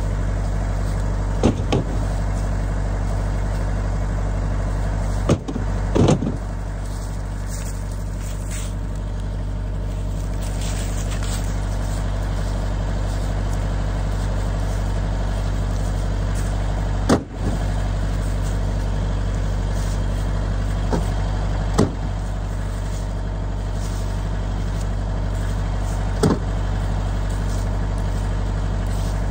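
Tractor engine running steadily to drive a hydraulic log splitter, with several sharp cracks and knocks scattered through as wood rounds split and pieces are handled.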